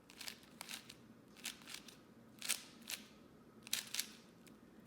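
Plastic 4x4 Rubik's Cube being turned through a parity algorithm: a faint, irregular run of quick clicking turns, often in pairs.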